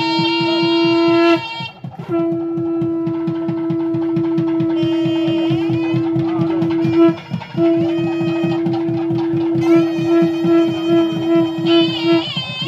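Conch shell blown in long held blasts, breaking twice for breath and wavering in pulses near the end. Behind it plays mangala vaadyam: a nadaswaram-style reed melody over fast thavil drumming.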